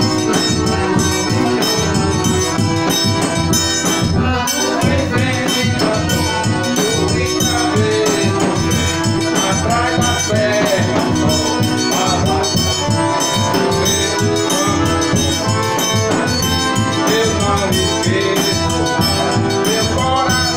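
Forró music played live: accordion over a quick, steady drum beat with shaken percussion.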